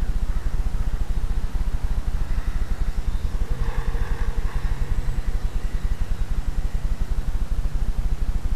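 Constant low rumble and buffeting on the microphone, with a brief higher buzz about midway from the small electric motor and propeller of a ParkZone UM Cub micro RC plane.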